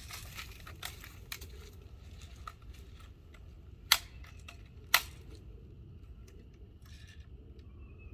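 Light clinking handling noises, then two sharp clicks about a second apart around four and five seconds in, and a faint steady high tone near the end.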